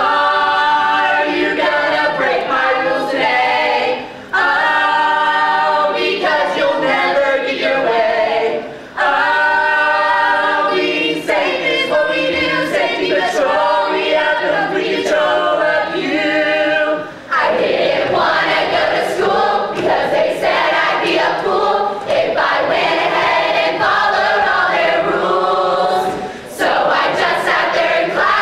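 A large group of men and women singing together, a cappella, in sung phrases broken by short pauses a few times.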